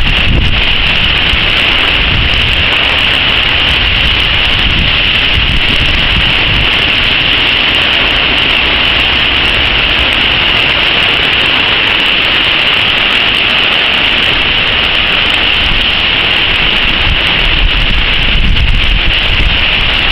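Heavy rain and strong wind from a passing hurricane: a loud, steady hiss of rain with wind buffeting the microphone, gusting harder near the end.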